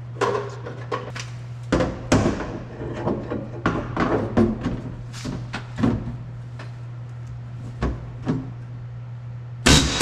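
Metal tools and parts being handled during cab riveting work: scattered clicks, clanks and knocks at an uneven pace over a steady low hum. A louder, denser run of knocks comes near the end.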